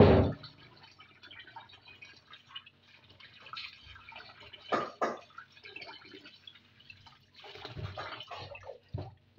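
Water splashing and dripping in a bowl as soaked beans are stirred and rinsed by hand to float off their skins. There are irregular splashes, a loud one at the start, two sharp ones about halfway and a run of them near the end.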